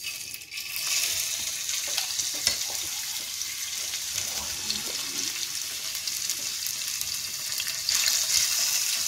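Pieces of marinated chicken frying in hot sunflower oil in a non-stick pan: a steady, mostly high-pitched sizzle with faint crackles that starts suddenly as the first pieces go in and swells briefly near the end.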